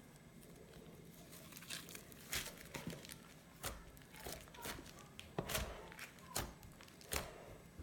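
Fluffy butter slime being squished and poked, giving a string of sharp crackles and pops, about a dozen over several seconds.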